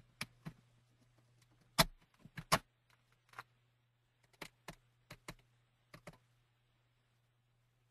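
Scattered keystrokes on a computer keyboard, irregular sharp clicks with the loudest just under two seconds in, over a steady low hum.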